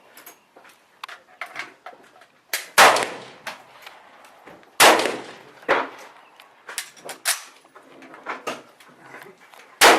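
Three loud shots from a semi-automatic CZ 858 rifle in 7.62x39, fired a couple of seconds apart: about three seconds in, about five seconds in and near the end, each ringing out briefly. Fainter sharp cracks come in between.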